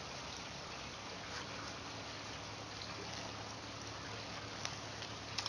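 Steady outdoor background hiss, with a few faint clicks near the end.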